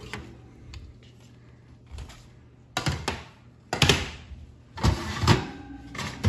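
Metal baking sheets clanking and scraping against the oven's wire racks and the stovetop as foil-lined trays of pumpkin seeds are moved out and slid back in. After about three fairly quiet seconds come several sharp clanks and scrapes.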